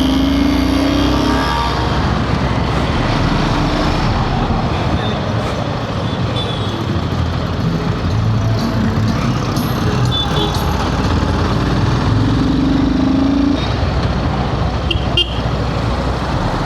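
Riding on a Royal Enfield Himalayan 450 in traffic: steady wind rush and engine noise from the single-cylinder motorcycle as heard from the rider's helmet. A horn sounds briefly near the start and again about twelve seconds in, and there are a couple of sharp clicks near the end.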